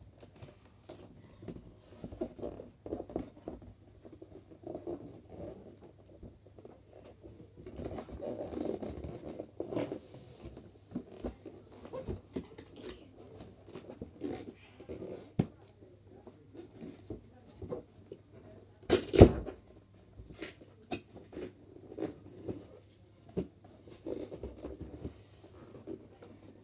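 Cardboard toy box being worked at by hand: scattered rustling, scraping and small clicks of packaging as a box that is hard to open is pried at. One sharp knock about two-thirds of the way through is the loudest sound.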